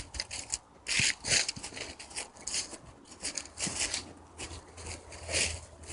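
Irregular swishing and scraping of brush and dry leaves against clothing and gear as a player pushes through vegetation, with short rustles coming two to four times a second.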